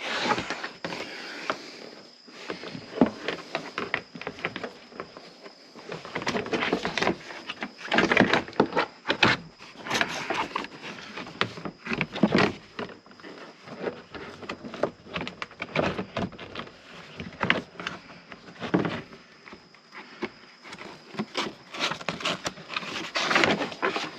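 Plastic interior trim panels being handled and pushed into place in a car: irregular clicks, knocks and scraping of plastic on plastic as the panels and clips are fitted.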